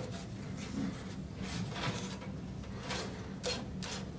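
Stamped-metal motherboard I/O shield being pressed into the rear cutout of a PC case: a series of short scrapes and clicks, about six in all, as its edges rub and snap into place against the case's sheet metal.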